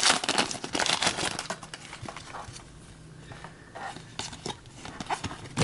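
Trading-card pack wrapper crinkling and cards being handled: dense crinkling for about the first two seconds, then quieter, with scattered light clicks.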